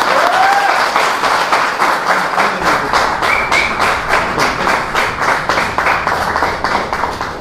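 Audience applauding: many people clapping together, with a couple of brief voices rising over it. The applause stops just after the end.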